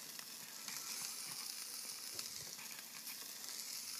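Meat sizzling on a charcoal grill, a steady hiss.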